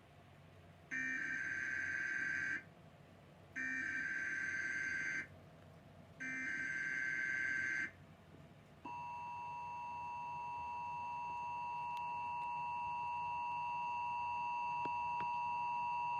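Emergency Alert System header: three short bursts of SAME digital data tones about a second apart, followed by the EAS two-tone attention signal, a steady dual-pitch tone about eight seconds long that slowly grows louder. Together they announce an emergency alert, here an Amber Alert for a child abduction.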